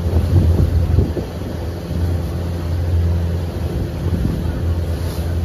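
Motorboat engine running at a steady low drone under way, with water splashing against the hull, heaviest in the first second or so, and wind buffeting the microphone.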